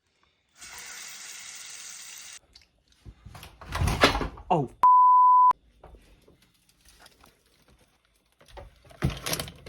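A short, loud electronic bleep, one steady pure tone lasting under a second, just after a spoken 'Oh'. It is a censor bleep edited in over a word. Before it, a steady rushing noise runs for about two seconds.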